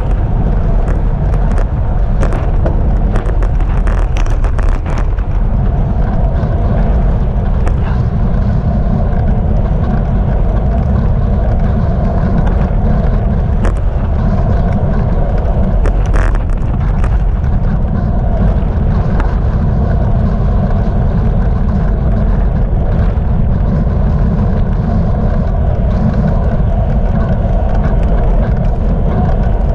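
Steady, loud wind rush on a bicycle-mounted GoPro's microphone while riding along a road, with scattered sharp clicks and knocks in the first few seconds and again around the middle.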